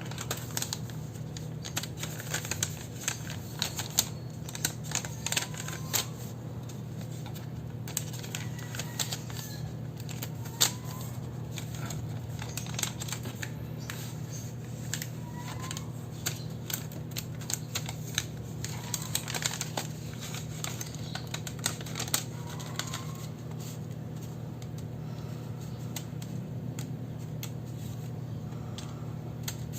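Irregular light clicks, taps and rustles of paper and stationery being handled during journaling, over a steady low hum.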